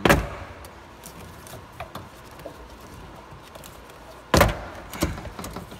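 Plastic rear interior trim panel of a Honda Civic coupe being pushed out from behind by hand. A loud thump right at the start, then another loud thump about four seconds in and a lighter one just after, as the panel's clips are forced loose.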